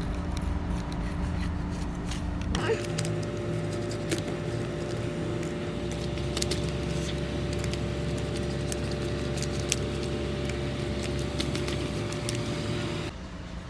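A steady mechanical hum with scattered light clicks and rattles of packaging being handled. The background changes abruptly twice.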